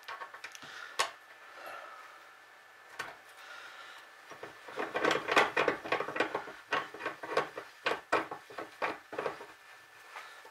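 Hand tools and metal fittings clicking and clinking while a thin metal pipe clamped in a bench vise is worked. There are a few single clicks at first, then about halfway through a dense, irregular run of sharp metallic clicks lasting some five seconds.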